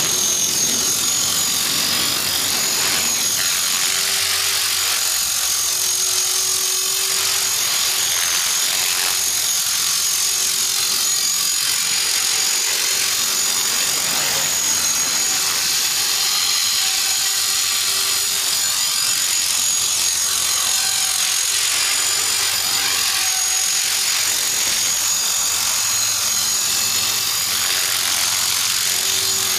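Align T-Rex 450 electric RC helicopter in flight: a steady high whine from its motor and gears over the whir of the rotor blades, wavering slightly in pitch as the pilot works the throttle. A ticking comes from a very slightly bent main shaft.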